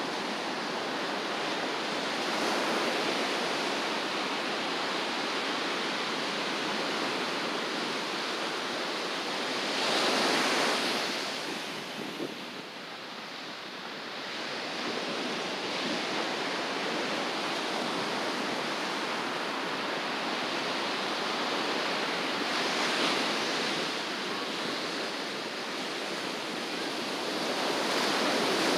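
Ocean surf on a beach: a steady rushing wash. Waves break louder about ten seconds in and again near the end.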